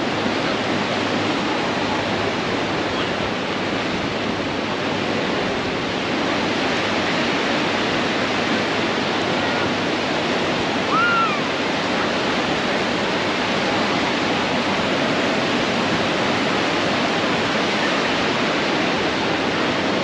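Steady wash of surf breaking and running up a sandy beach. A brief high-pitched call cuts through about eleven seconds in.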